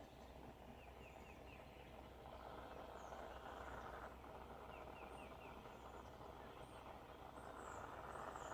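Faint, steady hiss of a soldering torch flame heating silver, swelling louder a couple of times. Small birds chirp in the background, with two quick runs of four high notes.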